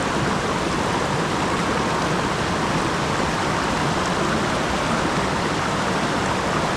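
A swollen mountain stream rushing steadily, with full, even water noise. The stream is running high after a typhoon.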